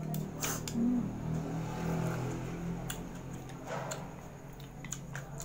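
Eating noises of noodles taken with chopsticks: a few light clicks of chopsticks against a plastic tub and plate, and a short slurp or chew a little before the four-second mark. A low hum runs under the first couple of seconds.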